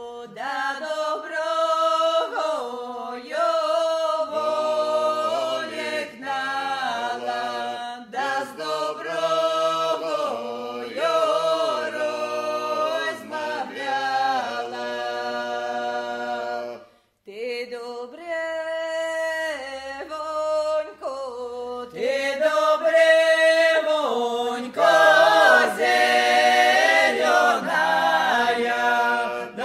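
A group of voices singing unaccompanied in harmony, with a short break about two-thirds of the way through before the singing resumes.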